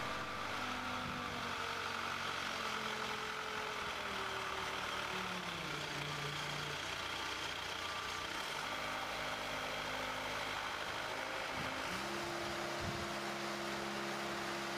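Boat travel lift's engine running steadily, its pitch shifting a couple of times, with a new, higher tone about twelve seconds in.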